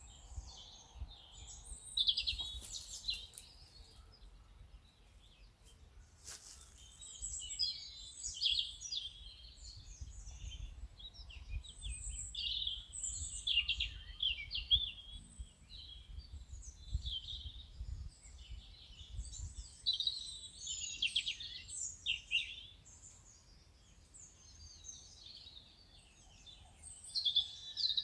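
Birds chirping and singing in a busy chorus of short, high calls and trills that thins out for a few seconds near the end, over a low rumble. Two brief clicks sound in the first few seconds.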